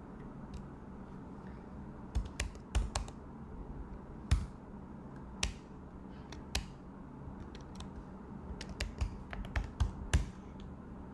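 Typing on a computer keyboard: irregular key clicks, a few sharper and louder, from about two seconds in until near the end.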